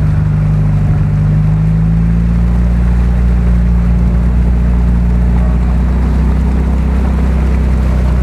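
Toyota Land Cruiser engine running under load as the truck crawls through deep mud, a steady low engine drone.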